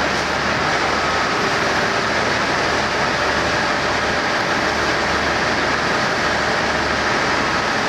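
KiHa 40-series diesel railcar idling at the platform: a steady engine hum with a deep throb that comes and goes about once a second, under a loud even mechanical noise.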